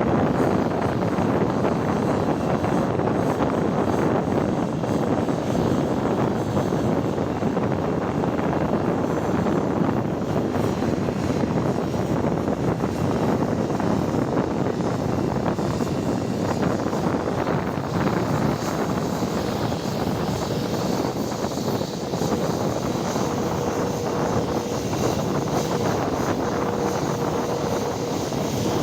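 Airliner engines running with a steady, even noise. A faint steady whine comes in about twenty seconds in.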